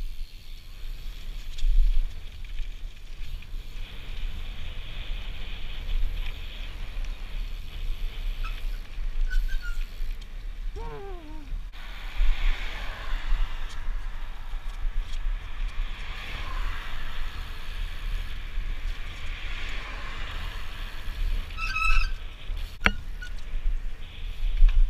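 Wind buffeting a helmet-mounted action camera's microphone over the rolling noise of a BMX bike on a tarmac road. A couple of brief squeaks come about halfway and near the end, with one sharp click just after the second.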